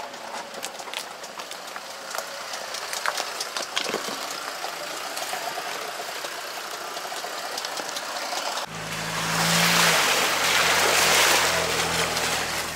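A 4x4 driving off-road over stony ground, with a steady crackle of clicks from the tyres and stones. About nine seconds in, an engine running at a steady note and a loud rushing noise come in abruptly.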